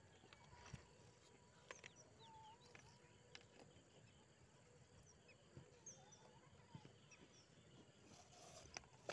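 Near silence: faint outdoor ambience with a few short, high chirps scattered through it and occasional light clicks.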